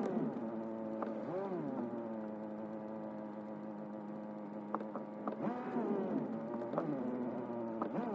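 Steady hum inside a car driving slowly in town traffic, with a few light clicks.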